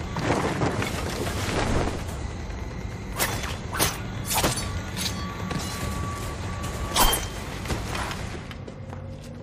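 Tense film score under a sound-effects track: a rush of noise in the first two seconds, then a string of sharp hits and thuds, the loudest about seven seconds in.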